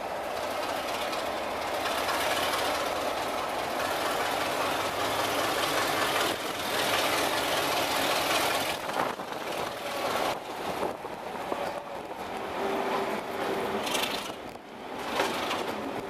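Diesel-hauled passenger train pulling away, its running noise heard from an open carriage window, with a brief steady whine about three-quarters of the way through.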